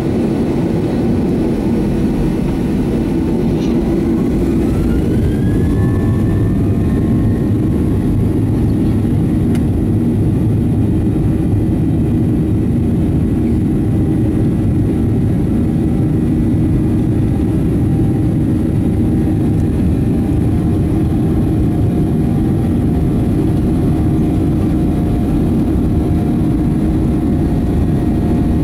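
Boeing 737-800's CFM56 jet engines and cabin noise heard from inside the cabin while taxiing: a loud, steady rumble, with a whine that rises a few seconds in and then holds.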